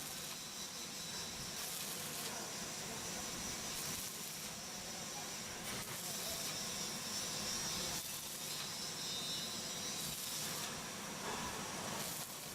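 Electric arc welding: the arc gives a steady sizzling hiss, with brief crackling surges now and then.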